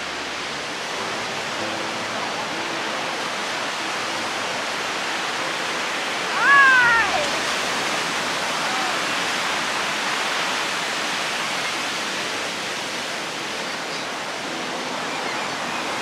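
Ocean surf breaking and washing up a sandy beach: a steady rushing hiss. About six and a half seconds in, a short high cry falling in pitch stands out as the loudest sound.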